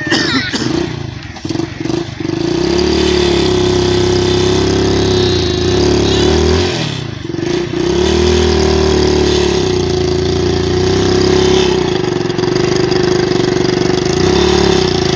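Motorcycle engine running steadily as it tows a loaded cart, its note dropping and climbing back twice as the rider eases off and picks up again.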